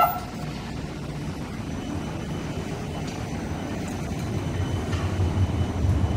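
Supercapacitor tram pulling into the platform: a steady low rumble that grows louder near the end as the cars pass close by. A short tone sounds right at the start.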